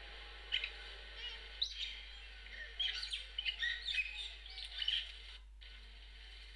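Ducklings peeping: a string of short, high chirps, busiest from about three to five seconds in, then stopping.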